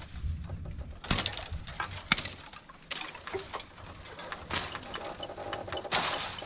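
Brush being cleared among thorny bamboo: two sharp cracks about a second apart, then longer rustling sweeps of leaves and branches.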